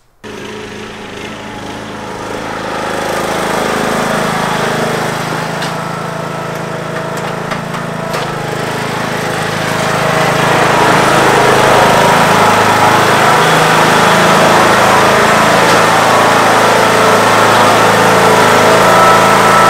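Craftsman riding lawn mower engine running steadily. It starts abruptly right at the start and grows louder from about ten seconds in as the mower drives into a garage.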